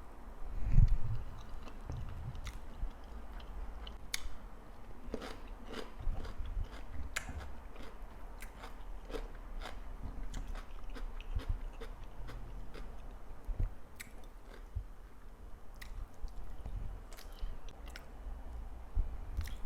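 Close-miked eating sounds of a person chewing tilapia and fried plantain, with many small wet mouth clicks and light crunches. A louder low thump comes about a second in.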